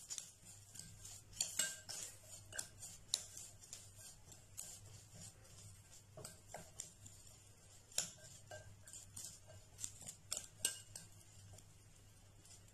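Semolina, onion and curd being mixed by hand in a glass bowl: faint, irregular clicks and taps of fingers against the glass.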